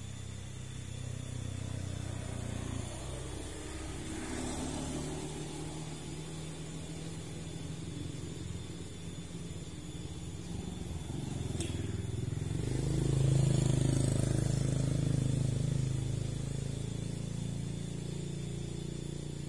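A motor engine passing by: a low, steady hum that grows louder to a peak about two-thirds of the way through, then fades.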